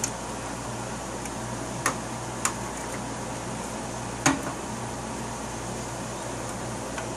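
Sharp metallic clicks of a screwdriver tip knocking against a steel PC case's drive-bay frame, about four of them, the loudest a little past four seconds in, over a steady fan-like hum.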